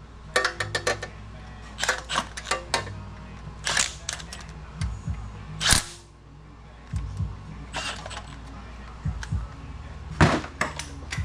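Hand ratchet clicking in short runs as the oil pan bolts are snugged up, with a few dull knocks and a steady low hum underneath.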